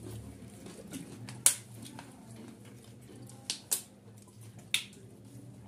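Eating sounds from people eating biryani by hand: a few short sharp clicks and smacks, the loudest about a second and a half in and two close together past the middle, over a low steady hum.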